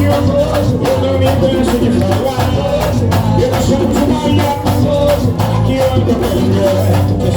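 Loud live band music, with singing over a steady percussion beat.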